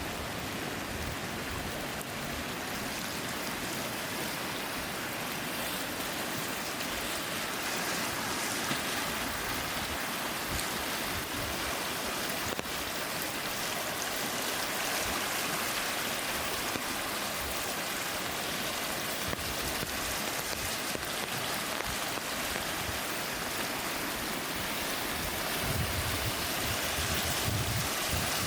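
Steady rush of flowing water, an even hiss with no pauses. A low rumble swells briefly near the end.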